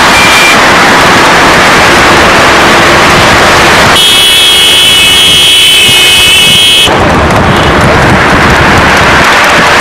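Loud, rushing noise of moving road vehicles and wind, with a vehicle horn held in one steady multi-tone blast for about three seconds from about four seconds in.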